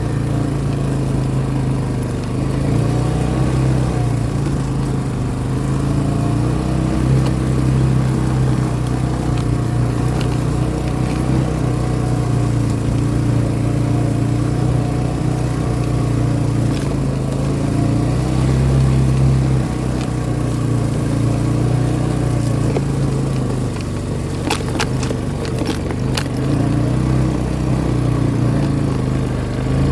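A vehicle engine running steadily while driving, its pitch rising and falling as the throttle changes. A few sharp knocks or rattles come near the end.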